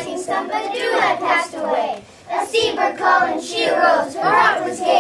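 A group of young children singing together in phrases, with a short break between phrases about two seconds in.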